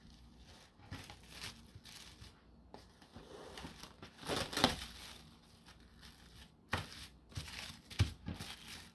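Plastic cling wrap crinkling and tearing as a bamboo sushi mat is wrapped in it, with scattered rustles and crackles, the loudest about halfway through.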